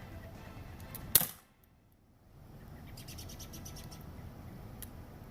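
A Ruger P345 BB pistol firing one sharp shot about a second in.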